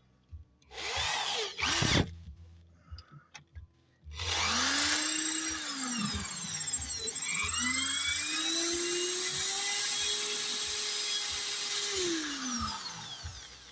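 Electric drill boring into a brake pad: two short trigger blips, then the drill spins up and slows twice, its whine rising, holding and falling as it cuts.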